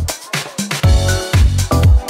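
Background dance music with a steady beat, a strong kick drum about twice a second under sustained synth tones.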